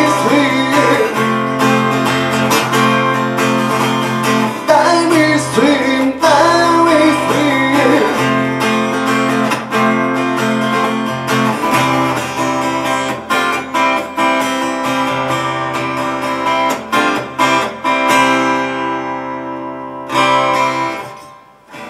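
Acoustic guitar strummed through a song's closing bars, with a sung vocal line over it in the first several seconds. The strumming thins out, and a last strum about two seconds before the end rings and dies away.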